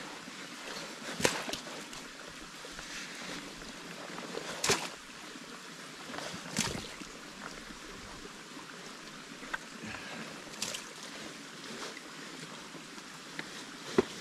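Digging in thick wet mud around a bogged motorcycle's wheels: about five sharp wet hits and scrapes spread a few seconds apart, over a steady background hiss.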